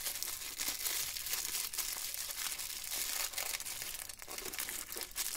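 Crinkly wrapper of a small L.O.L. Surprise blind-bag accessory being crumpled and peeled open by hand, an uneven run of crackles.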